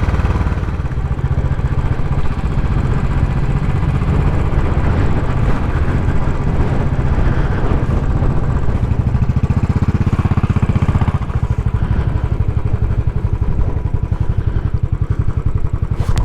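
Royal Enfield Classic 500's single-cylinder engine running steadily as the motorcycle is ridden, its note changing about ten seconds in.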